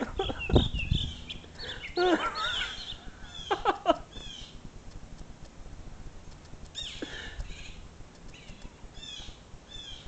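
Blue jays calling over and over with short, downward-bending calls. A few louder, lower cries come about two and four seconds in, and there are low thumps near the start.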